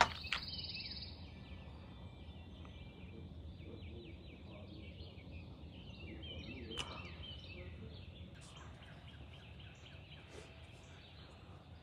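Faint outdoor ambience of birds chirping, with many short high calls repeating over a low steady rumble.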